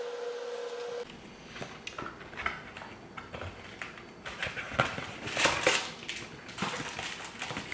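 Scattered light knocks and rustles of handling a cardboard box of aluminium foil as it is picked up and opened, loudest a little past the middle. A steady hum stops abruptly about a second in.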